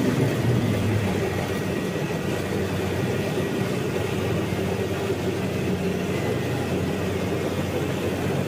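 Combine harvester's diesel engine running steadily under a constant low hum, with a faint high whine over it.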